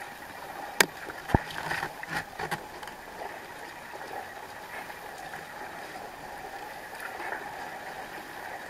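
Kayak paddling in sea water: splashing from the paddle strokes over steady lapping water, with two sharp knocks about a second in and a cluster of splashes just after.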